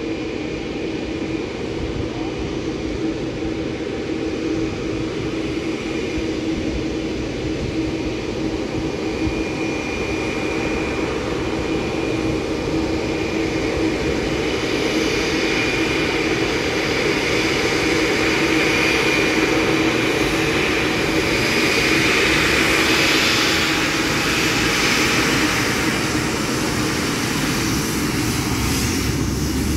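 Boeing 777-9's twin GE9X turbofan engines running at low power as the jet taxis closer: a steady hum with a high whine that grows louder, loudest about three quarters of the way through.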